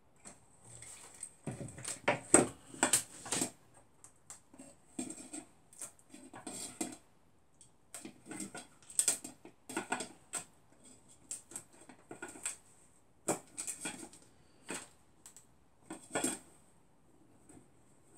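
Stainless steel bowls knocking, clicking and scraping as a thin tool is levered at the rim to prise a hardened polyurethane resin casting out of the bowl mould. The strokes are irregular, loudest about two to three seconds in.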